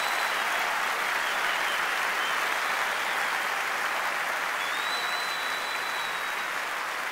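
Large concert audience applauding at the end of a live song. A thin, high steady whistle rises above the clapping about five seconds in.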